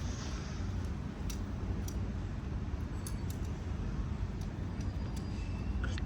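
Steady low rumble with scattered light clicks and faint metallic jingles.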